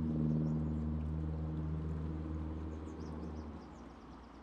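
A motor droning at a steady pitch and fading away about three and a half seconds in, with faint bird chirps over it.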